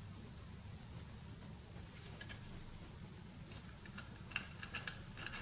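Light clicks and taps of small parts being handled during a laptop hardware upgrade: a few about two seconds in, then a quicker run of them near the end, over a low steady hum.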